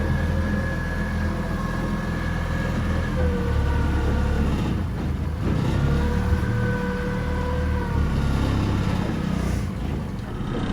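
A boat motor running steadily, a low rumble with a faint engine whine whose pitch shifts slightly a few times.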